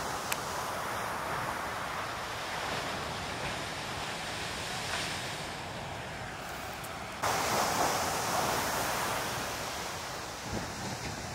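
Big surf breaking heavily close to shore and washing up the beach, with wind buffeting the microphone. The rush of water jumps suddenly louder about seven seconds in.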